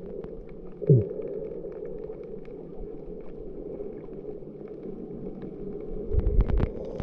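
Muffled underwater noise through an underwater camera's housing: a steady low rush, a short loud downward swoop about a second in, and a cluster of low bumps and sharp clicks near the end.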